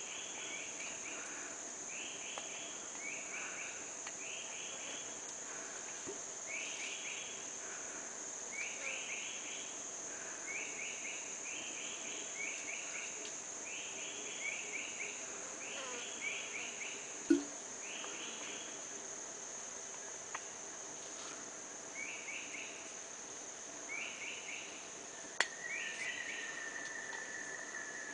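Forest insects keep up a steady high drone, with a short chirping phrase repeated every second or two. A sharp snap comes about two-thirds of the way through, and near the end a long, slowly falling tone sets in.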